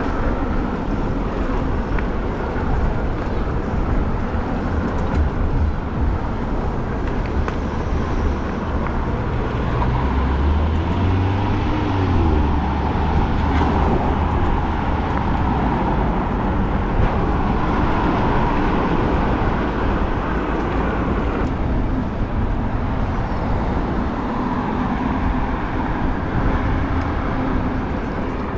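Steady wind buffeting the microphone with road and traffic noise during a ride on an electric bike. A faint hum rises and falls about ten to twelve seconds in.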